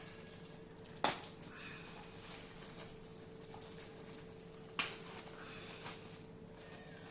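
Packaging being handled and opened by hand, with light rustling and two sharp clicks, one about a second in and another near five seconds in, over a faint steady hum.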